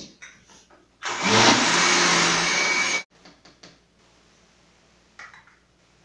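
Philco countertop blender motor running for about two seconds, spinning up about a second in and cutting off suddenly, as it mixes a thin pie batter of milk, eggs, flour and oil. A few light clicks follow.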